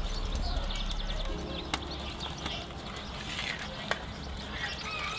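Birds chirping over a faint crackle, with two sharp clicks about two and four seconds in.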